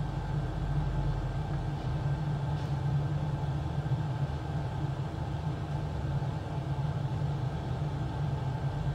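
Steady low hum of running workbench equipment, unchanging throughout, with a few faint steady tones above it.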